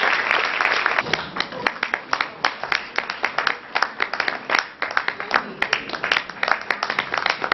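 Audience applauding. The applause is thick at first and thins after about a second into scattered, uneven claps.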